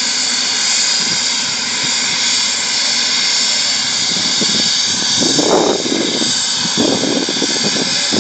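Helicopter running on the ground with a loud, steady engine whine and rotor rush, not yet lifting off. Faint voices break in briefly past the middle.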